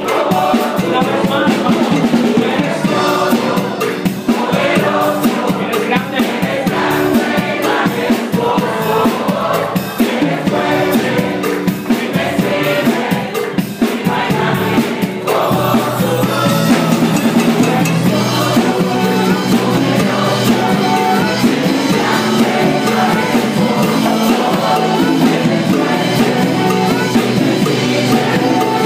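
Live church worship music: saxophones playing together with a small group of singers and drums.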